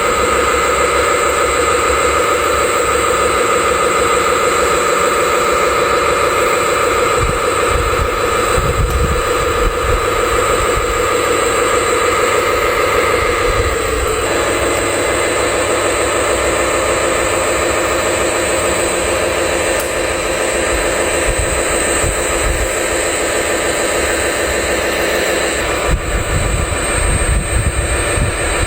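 A large engine running steadily, its tone changing about halfway through.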